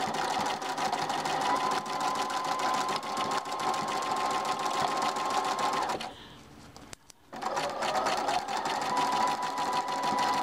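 Electric sewing machine stitching steadily through a twisted, taped length of ribbon. It stops about six seconds in and starts again about a second later.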